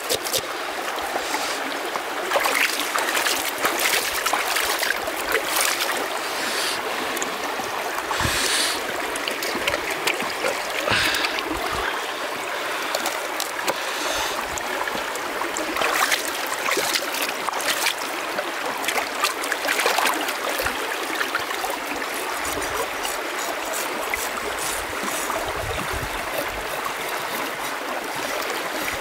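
Shallow stream water running steadily over rocks, with scattered short scraping strokes as a knife scrapes the scales of a large fish on the stones.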